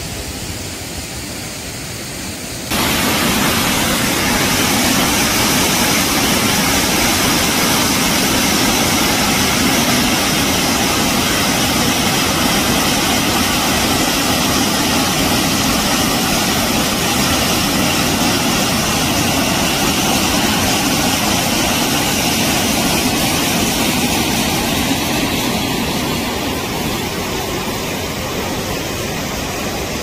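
Mountain-stream waterfall pouring into a rock pool: a steady rush of falling water that gets suddenly louder about three seconds in and eases a little near the end.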